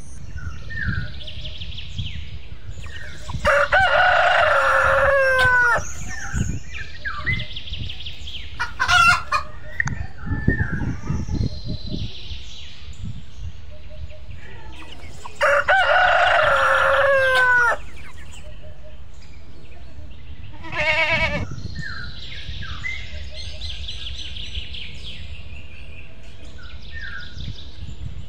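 Rooster crowing twice, each crow about two seconds long, with shorter calls in between and faint bird chirping throughout.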